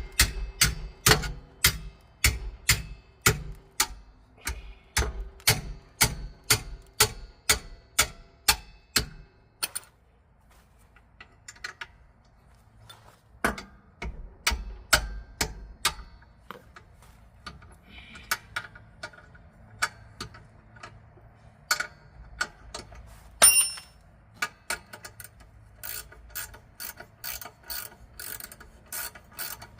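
Hand ratchet with a 17 mm socket clicking as it turns a brake caliper bracket bolt. There is a steady run of about two clicks a second, then a short lull. After that come scattered clicks and one sharp metallic knock, and the steady clicking starts again near the end.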